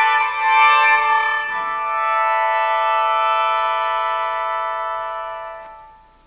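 Sheng, the Chinese free-reed mouth organ, playing a sustained organ-like chord of several notes. It moves to a new chord about a second and a half in, holds it, and then fades away to near silence near the end.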